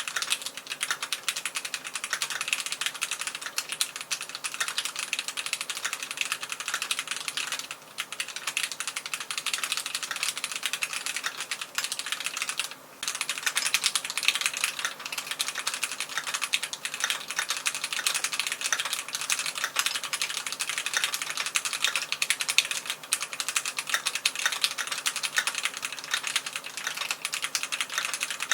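Keychron Q1 Knob gasket-mounted mechanical keyboard with OSA-profile PBT keycaps being typed on fast and continuously: a dense run of keystrokes, with brief pauses about 8 and 13 seconds in.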